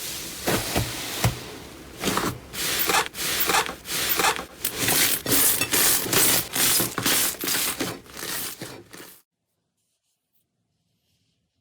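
Slime being worked by hand: a run of rubbing, scraping strokes, about two a second, that cuts off suddenly about nine seconds in.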